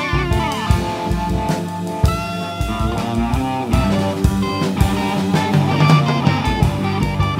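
Instrumental rock-fusion jam: a drum kit keeping a steady beat under sustained, sliding electric guitar lines.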